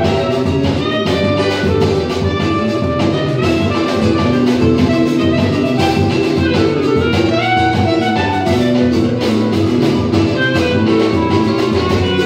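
A small choro-samba group playing live: clarinet melody over cavaquinho, seven-string guitar and drum kit, with a steady, continuous groove.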